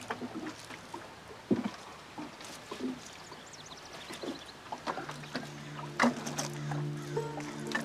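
Water poured from a plastic jug onto a grave and dry leaves being handled, with a few sharp knocks and clicks. Soft music with sustained low notes comes in about five seconds in.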